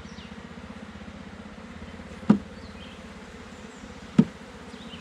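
A swarm of honeybees buzzing steadily around an opened hive, with two sharp knocks about two seconds apart.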